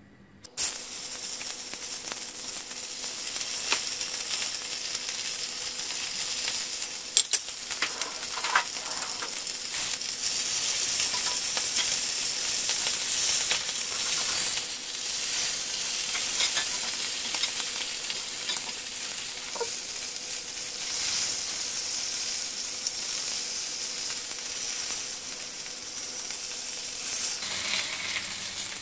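Sous-vide-cooked beef silverside searing in a hot cast-iron skillet with garlic and sun-dried tomatoes in olive oil: the sizzle starts suddenly as the meat goes in, about half a second in, and carries on steadily. A few sharp clinks of a fork and spoon against the pan come about seven to nine seconds in.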